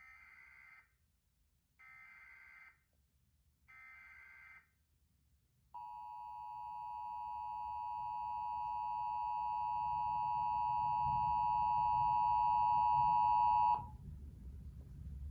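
Emergency Alert System signal: three short bursts of screechy SAME data header, about two seconds apart, followed by the two-tone attention signal, held steady for about eight seconds and growing louder before it cuts off abruptly.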